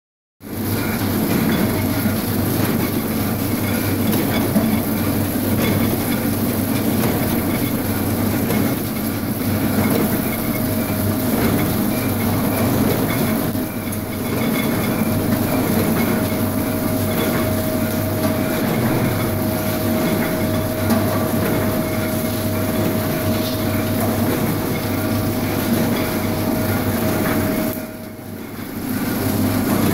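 Horizontal flow-pack wrapping machine running steadily as it wraps baguettes: a continuous mechanical clatter over a steady hum, with a faint steady tone joining about a third of the way in. The level dips briefly near the end.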